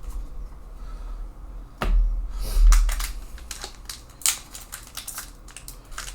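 Trading cards and booster-pack wrappers being handled: a run of light clicks and rustles, with a louder bump and rustle about two seconds in.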